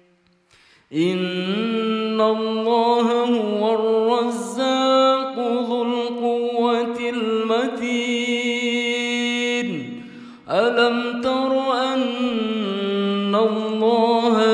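Solo voice chanting Quran recitation in a melodic style, with long held notes that bend and ornament in pitch. It starts about a second in and breaks off briefly near ten seconds.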